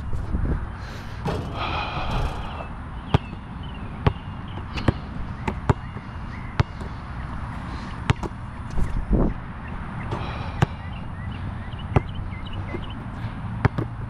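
Molten BG3800 basketball bouncing on an outdoor court, a dozen or so sharp, irregularly spaced bounces about a second apart, over a steady low rumble.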